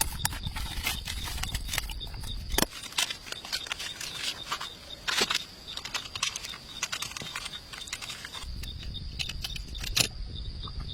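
Raindrops falling irregularly as sharp taps, typical of drips on a tent or tarp while camping in rain, over a steady high insect trill. A low rumble runs during the first couple of seconds and again near the end.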